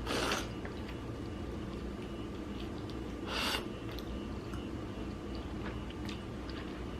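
Quiet mouth sounds of someone eating: chewing with small wet clicks, and two short breathy rushes, one at the start and one about three and a half seconds in.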